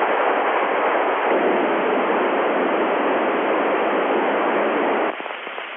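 FM radio receiver hiss with the squelch open, tuned to the LAPAN satellite's FM repeater downlink on 435.889 MHz while no station is transmitting. The steady hiss falls away sharply about five seconds in.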